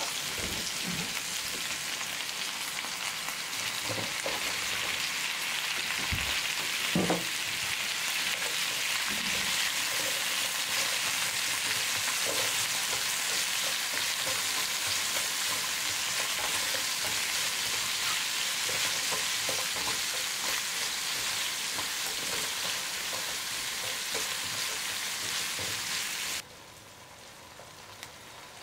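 Chicken thigh pieces, then carrot and burdock chunks, sizzling in oil in a non-stick frying pan as they are stir-fried with wooden chopsticks. A few knocks come about six or seven seconds in, and the sizzle turns suddenly much quieter near the end.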